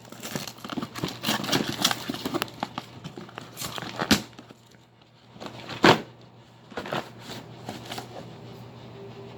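Cardboard packaging of a fireworks mortar kit being opened and handled: rustling and crinkling with small clicks, and two sharp knocks about four and six seconds in.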